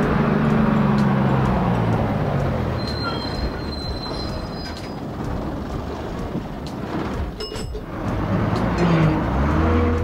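Bus engine sound effect: the engine pitch falls as the bus slows, a brief high brake squeal comes about three seconds in, and the engine revs up again near the end as the bus pulls away.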